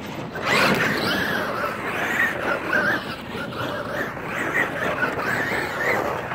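Traxxas E-Revo electric RC monster truck driving hard on dirt, its motor and gears whining up and down in pitch as it speeds up and slows, with the tyres churning loose dirt.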